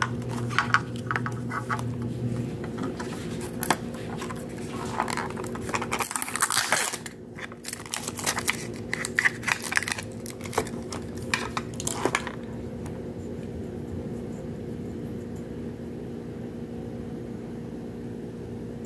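Plastic Mini Brands capsule ball and its plastic wrapper being handled and peeled open: crinkling, crackling and clicks of plastic for about twelve seconds, then the handling stops and only a steady low hum remains.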